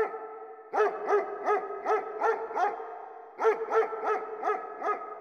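Dog barking in quick runs of short barks, about three a second, with a brief pause near the middle, over a steady humming tone.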